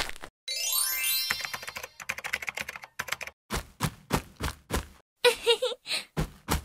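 Cartoon sound effects: a quick rising swoosh, then a run of light, sharp taps about three a second, like comic footsteps.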